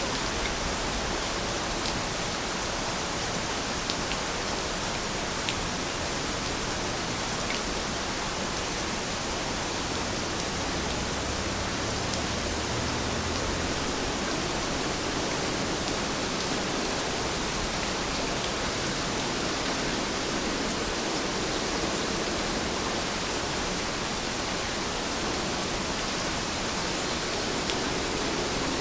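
Steady rain falling, an even hiss with a few sharp drip ticks here and there.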